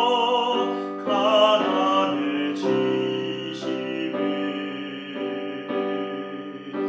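A man singing a slow hymn with piano accompaniment, holding notes with vibrato, then the piano carrying on with sustained chords.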